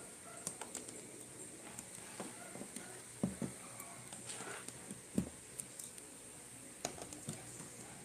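Light handling noise of small objects on a tabletop: scattered soft clicks and taps, with louder knocks about three, five and seven seconds in.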